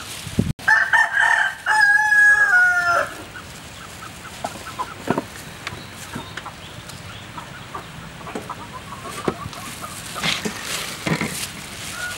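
A rooster crows once, loud and clear, starting about half a second in and lasting about two and a half seconds with a break partway through. Faint scattered clicks follow.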